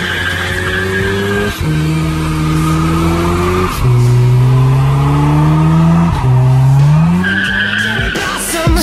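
Mazda RX-7 Turbo's 13B rotary engine revving hard and held at high revs during a burnout, its pitch climbing, with a few abrupt jumps. The spinning rear tyres squeal near the start and again towards the end.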